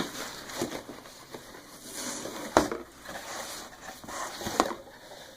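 Cardboard subscription box being opened by hand: irregular rustling and crinkling of the packaging, broken by sharp knocks, the loudest about two and a half seconds in and another near the end.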